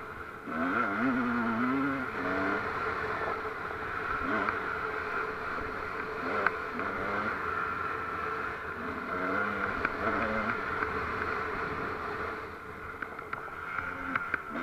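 A vehicle's engine running over a rough dirt track, its pitch wavering up and down with the throttle, with a steady whine and occasional sharp rattles from the bumps.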